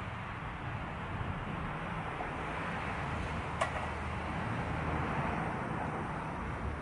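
Portable gas canister camping stove burner running with a steady hissing roar over a low rumble, and one sharp click about three and a half seconds in.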